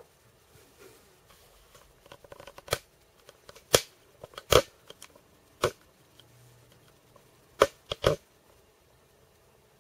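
A series of sharp clicks and taps at uneven intervals: a patter of small ones, then about six louder ones, the last three in quick succession.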